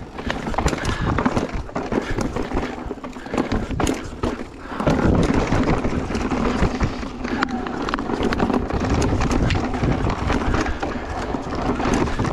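Electric mountain bike rolling over a dry, rocky dirt trail: tyre noise with frequent clicks and knocks as the bike rattles over the ground. A deeper wind rumble on the microphone grows louder about five seconds in.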